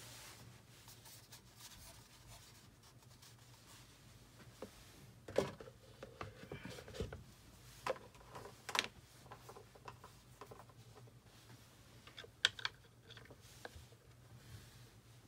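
Quiet handling of a cardboard product box and its paper inserts: scattered light taps, rubs and scrapes as the box is moved and the speaker is reached for, the sharpest about five, eight to nine and twelve seconds in.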